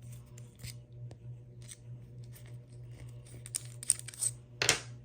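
Steel striker scraped repeatedly down a ferrocerium rod, a series of short rasping scrapes that come faster and louder toward the end, the last one the longest and loudest.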